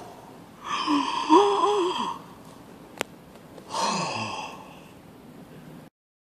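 A person's voice sighing twice, long and breathy, the first sigh carrying a wavering hum. There is a sharp click between the sighs, and the sound cuts off abruptly near the end.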